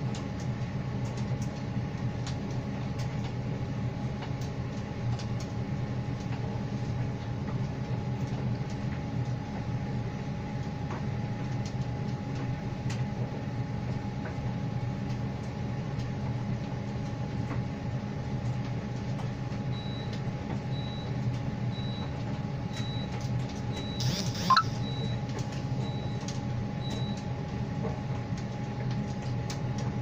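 Electrolux tumble dryer running near the end of its drying cycle: a steady motor hum with the drum turning, and faint light ticks as the clothes tumble. About two-thirds of the way through comes a run of short high beeps about one a second, with a brief sharp rising noise among them, the loudest moment.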